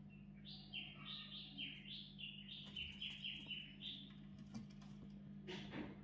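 Parakeet giving a rapid run of about a dozen short, harsh calls, about three a second, each dropping in pitch. A brief rustling burst follows near the end.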